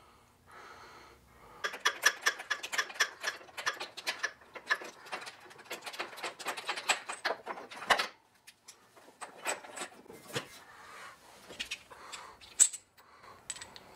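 Ratchet wrench clicking in quick runs as a spark plug is backed out with a spark plug socket, from about two seconds in to about eight seconds in. After that come scattered clicks and taps of the socket and plug being handled.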